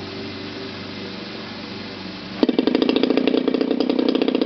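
A rear-carb DLE-30 30cc gasoline two-stroke model-aircraft engine starts: it catches suddenly about two and a half seconds in and runs on steadily with a rapid, even popping fire.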